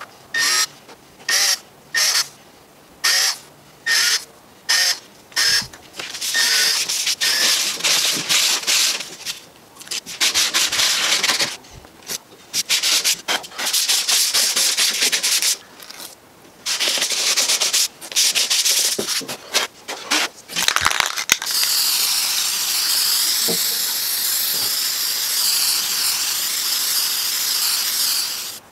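A cordless drill runs in short bursts, about eight in the first six seconds, driving screws into plywood. Longer bursts of hissing and rubbing come and go after that. The last seven seconds or so are a steady aerosol spray-paint hiss.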